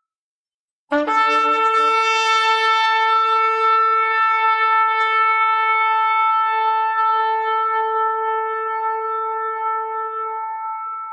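Shofar blast: a single long held note that starts suddenly about a second in, breaking up from a brief lower note, and fades toward the end.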